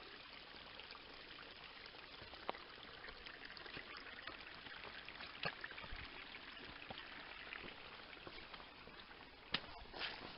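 Small woodland stream splashing and trickling steadily over rocks and moss, with a few faint clicks and a sharper knock near the end.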